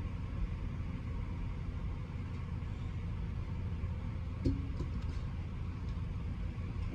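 Engine idling, a steady low rumble, with a single short click about four and a half seconds in.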